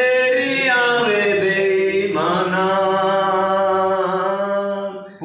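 A man singing unaccompanied, drawing out long held notes that glide up and down, in two phrases with a short breath about two seconds in.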